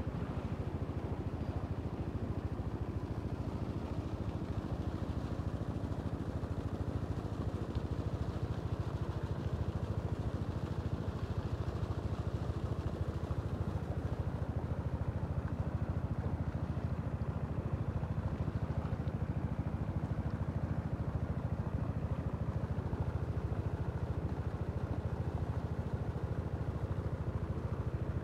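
A small engine running steadily with a constant low drone that does not change.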